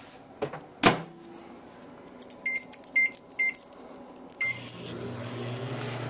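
Microwave oven door knocked shut, four short keypad beeps, then the oven starts up and runs with a steady low hum.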